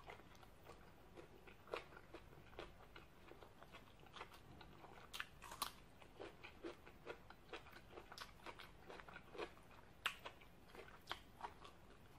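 A person chewing crunchy raw vegetables with an open, wet mouth, close to the microphone: irregular crisp crunches and mouth clicks, a few a second, with the sharpest about halfway through and about ten seconds in.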